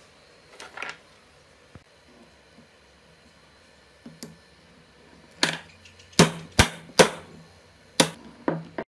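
Hammer blows on a metal pipe used as a drift, driving a new ball bearing onto the rotor shaft of an aerator's electric motor. There are about seven sharp, ringing metal knocks in the second half, in a quick run of the loudest ones around six to seven seconds in. Before the blows come a few light clicks of the parts being handled.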